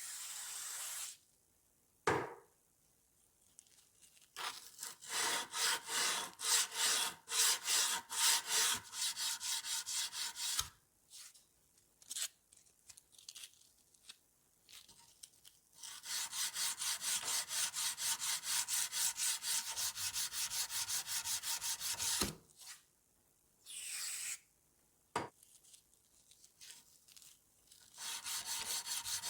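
Rusty steel scissors being scrubbed by hand with an abrasive in quick back-and-forth strokes, in several bouts with short pauses between them, and a few single knocks in the pauses.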